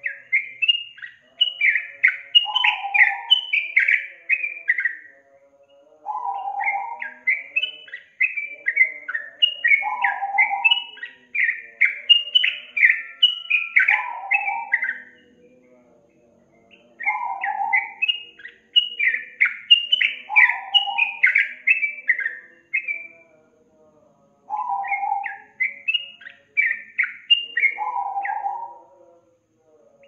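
Yellow-vented bulbul (trucukan) singing: repeated phrases about every five to six seconds, each a lower note followed by a fast, bubbling run of higher chirps, with short pauses between phrases.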